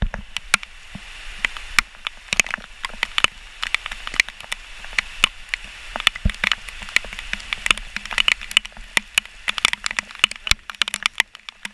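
Heavy rain pouring: a steady hiss with many sharp, irregular taps of drops striking close to the microphone.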